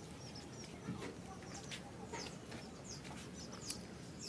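Birds chirping in short, high calls, repeated many times over a steady background noise.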